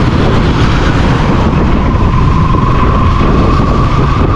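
KTM Duke 200's single-cylinder engine running under way with wind and road noise, its note climbing slightly in the second half.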